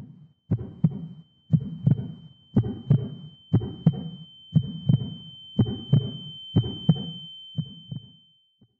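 Heartbeat sound effect: eight slow double thumps, about one a second, fading away near the end, under a steady high-pitched ringing tone.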